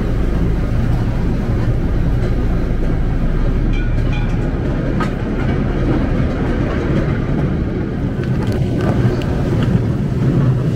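Mine-train ride cars rolling along their track: a steady low rumble with a hum and a few light clicks.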